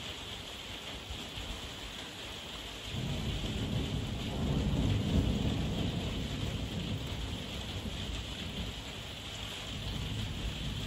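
Steady heavy rain, with a low roll of thunder that comes in about three seconds in, is loudest a couple of seconds later, and then rumbles on more quietly.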